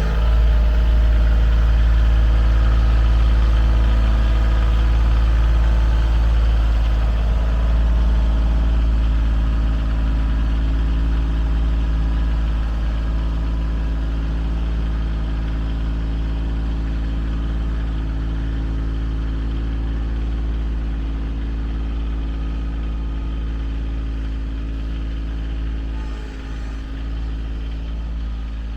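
A heavy engine running steadily at a low, even speed, easing off slightly in level over the stretch, with a brief dip near the end.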